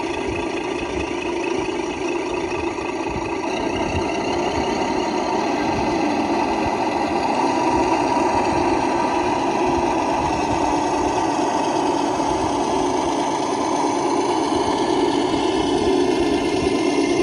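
Traxxas TRX-6 RC crawler's electric motor and drivetrain running steadily with a continuous mechanical whir and rattle, growing slightly louder about three seconds in.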